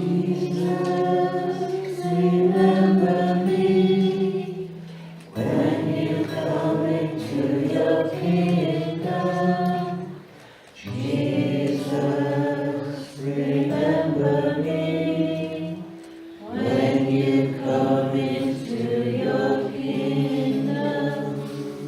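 Choir singing in four long phrases, each ending in a brief pause.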